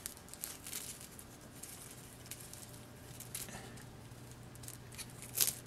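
Plastic cling wrap crinkling and rustling as hands handle and adjust a small vise wrapped in it, with scattered light clicks and a louder crinkle near the end.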